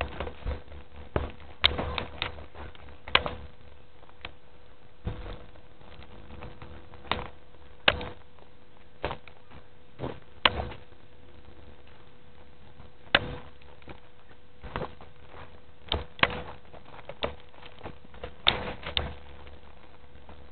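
Handling noise of a handheld camcorder: sharp, irregular clicks and knocks, about one every second or two, over a steady faint hum.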